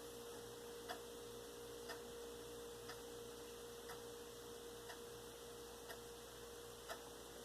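Faint ticking, about once a second, over a steady hum.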